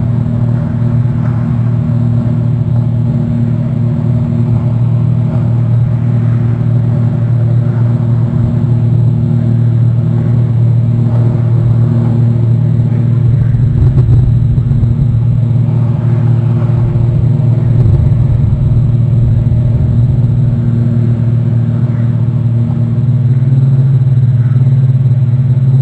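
A boat's engine running steadily, a loud low drone that rises slightly in pitch near the end.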